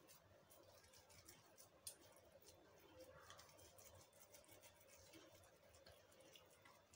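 Near silence: faint room tone with a few soft ticks.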